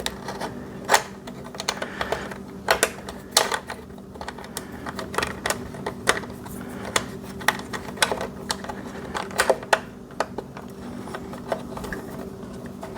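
Irregular light clicks and metallic taps from handling the flux-core welding wire and the welder's wire-feed parts (drive roll, tension arm and spring), over a steady low hum.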